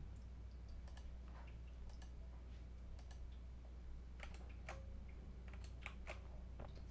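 Soft, irregular clicks of a computer mouse and keyboard, a dozen or so scattered taps, over a steady low hum.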